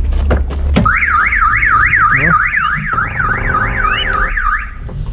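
Car alarm siren wailing, its pitch sweeping up and down about three times a second, set off as the driver's door is opened because the car's battery had been disconnected. A few clicks come before it, and it stops shortly before the end.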